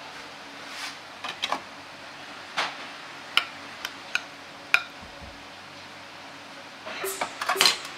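A ceramic soup spoon clinking and tapping against a ceramic ramen bowl as it dips into the broth. A few sharp separate clicks come midway, and a quicker run of clinks near the end, over a faint steady hum.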